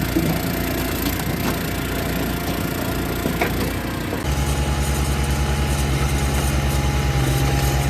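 Log splitter engine running with wood cracking as it splits. About four seconds in it changes abruptly to a louder, steady diesel engine running, an Eastonmade 37D diesel log splitter.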